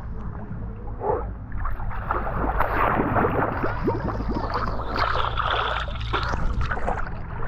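Water sloshing and gurgling around someone in a tub or pool, with a steady low hum underneath.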